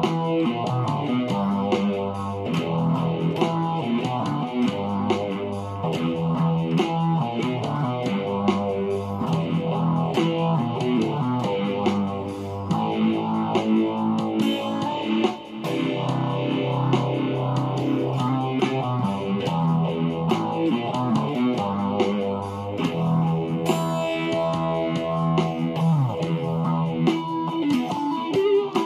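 Electric guitar playing an instrumental piece, a busy line of notes over low notes that change every second or two, with a brief drop in level about halfway through.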